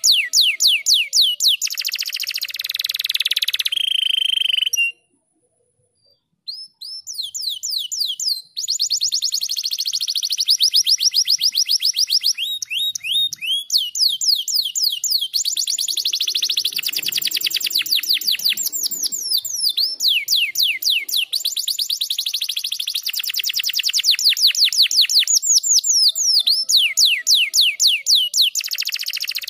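Canary singing: long, rapid trills of fast sweeping notes, one run after another, with a brief pause about five seconds in.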